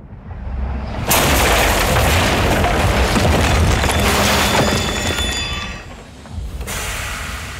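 Sound effects of a locomotive smashing through a house wall: a low rumble builds for about a second, then a sudden loud crash of breaking wall and debris with the train's rumble, easing off about six seconds in before another loud burst near the end.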